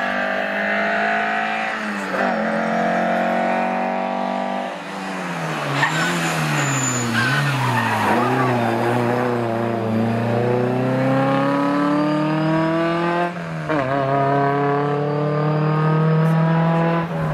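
Lancia Fulvia Coupé rally car's narrow-angle V4 engine driven hard, revving up through the gears. The revs drop sharply at each shift, about two seconds in, about five seconds in and near the end, and rise and fall in between as the car lifts off and accelerates through bends.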